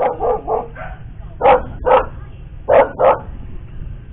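A dog barking: a quick run of short barks at the start, then two pairs of louder barks.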